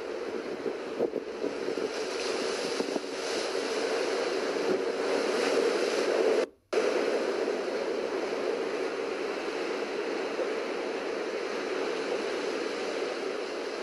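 Steady rush of ocean surf breaking on a rocky shore, with some wind. The sound cuts out suddenly for a moment about halfway through.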